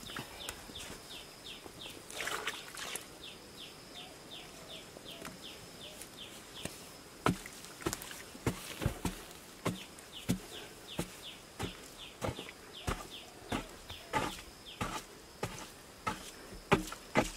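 Digging strokes of a hand tool into the earth, sharp knocks roughly once or twice a second from about seven seconds in. Behind them, a steady chirping repeats several times a second over a faint constant high whine.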